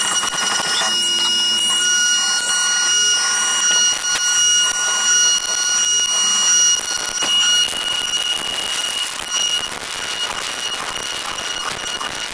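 CNC vertical milling machine cutting a metal block under flood coolant: a steady high-pitched cutting whine over the hiss of coolant spray, the tone changing about two-thirds of the way through.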